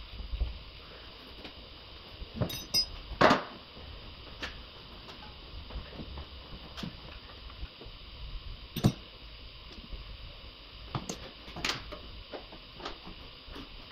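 Metal hand tools and parts clinking and knocking as they are handled and set down, in scattered sharp clinks. The loudest knock comes about three seconds in, with others near nine and eleven seconds.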